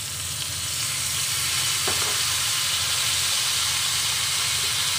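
Pork leg sizzling in hot oil in a pan just after soy sauce is poured over it, a steady frying hiss that swells about half a second in.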